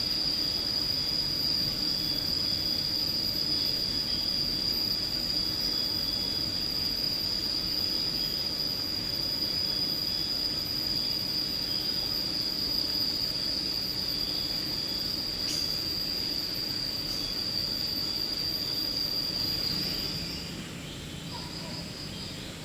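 Steady, high-pitched insect drone holding one pitch, which cuts off about twenty seconds in. Shorter chirping calls start up near the end, over a low rural background hiss.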